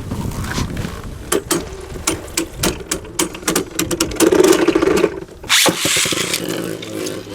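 Beyblade Burst spinning tops clashing: a quick run of sharp clicking hits over a steady motor-like spinning whine, with a louder noisy burst about five and a half seconds in.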